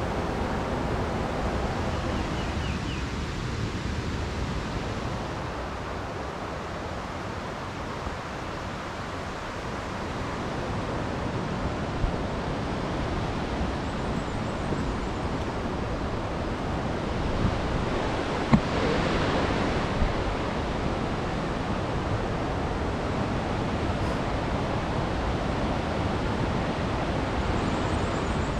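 Steady rushing of a river's flowing water, with a few soft knocks around the middle.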